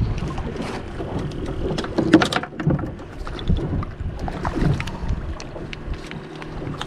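Wind rumbling on the microphone and water slapping against a small fiberglass boat's hull, with scattered knocks and clicks as the rod and landing net are handled while a hooked fish is brought to the net.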